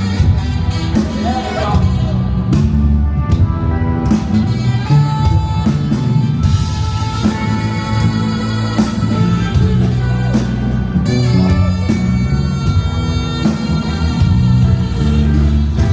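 Live rock band playing a slow instrumental passage, with guitar over bass and drums.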